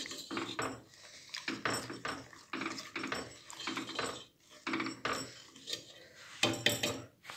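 Silicone whisk stirring a thin batter of molasses, water, flour and starch in a stainless steel pot, with irregular scraping and knocks against the pot's sides, the loudest near the end.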